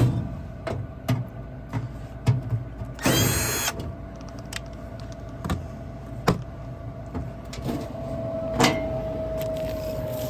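Clicks and knocks of tools and furnace parts being handled, with a short burst of a cordless drill/driver about three seconds in. Near the end a steady humming tone sets in.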